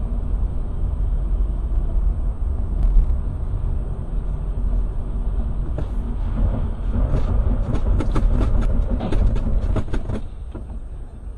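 Low, steady rumble of a moving car's engine and tyres on the road, heard from inside the cabin, with a run of sharp clicks and knocks from about six to ten seconds in.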